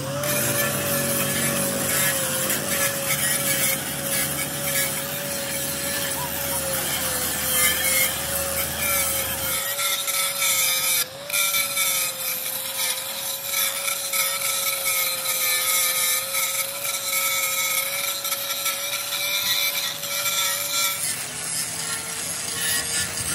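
Power tool running with a steady, slightly wavering whine over a rasping grinding noise, as when metal is being ground or cut. A deeper hum under it stops about ten seconds in, and the whine drops in pitch near the end.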